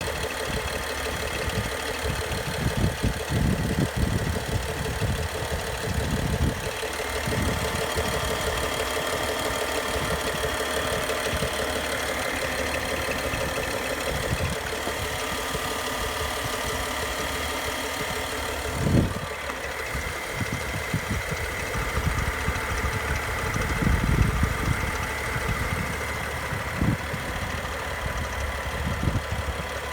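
BMW N55 turbocharged inline-six idling steadily with an extraneous noise, a few irregular low thumps over the steady running. The owner cannot find its cause: both timing chains, the VANOS units, the belt and the pulleys are all new.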